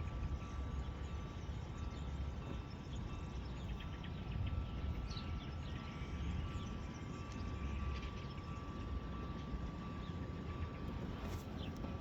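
Outdoor ambience: a steady low rumble with a faint, steady high whine and scattered faint bird chirps.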